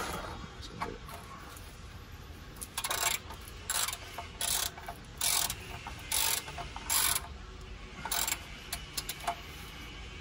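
Ratchet socket wrench tightening an oil sump drain plug: about seven short runs of ratchet clicking, one on each back-swing of the handle, starting about three seconds in and spaced a little under a second apart.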